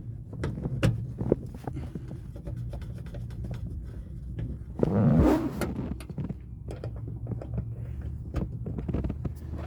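Handling noises from work on a car seat and its seatbelt hardware: scattered light clicks and knocks, with a louder rustling scrape about five seconds in, over a steady low hum.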